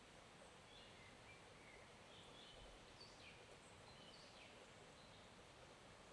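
Faint, steady flow of a small forest stream, with several short, faint bird chirps over it in the first few seconds.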